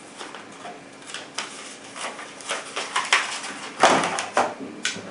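Paper flyer and stiff clear plastic clamshell packaging being handled: a run of short rustles, crinkles and clicks, loudest about four seconds in.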